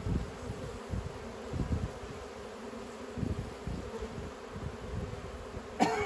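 Honey bees buzzing over an opened hive, a steady hum. A sharp click comes near the end as the metal hive tool works between the wooden frames.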